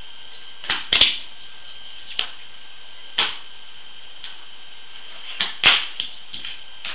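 Tech Deck fingerboard clacking on a wooden tabletop as fingers pop and land it: a string of sharp, irregular clicks and taps, loudest about a second in and again near the end. A steady hiss runs underneath.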